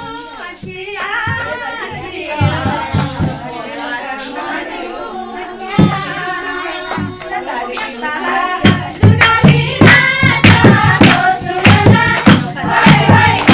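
Voices singing a Kumaoni Holi folk song together. About nine seconds in, a steady beat of sharp strikes, about three to four a second, joins the singing and grows louder.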